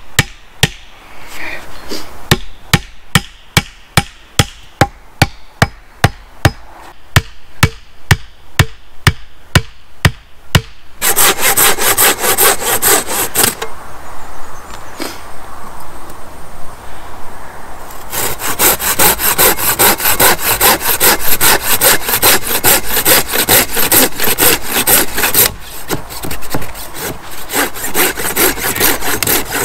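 An axe head striking the top of a wooden stake about twice a second, driving it into the ground, for roughly the first ten seconds. Then a hand saw cutting into the wooden stake in quick, steady strokes, with a pause of a few seconds after the first short run.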